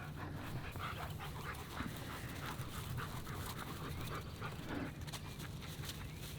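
German Shepherd panting, a run of quick short breaths.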